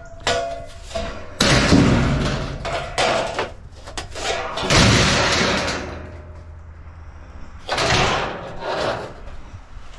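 Scrap metal being handled and dropped: an irregular string of thuds, clangs and scrapes, one piece ringing briefly just after the start, with a lull about six to seven seconds in.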